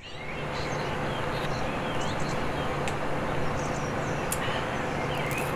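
Steady outdoor ambience: a constant rushing background hum with a few faint bird chirps.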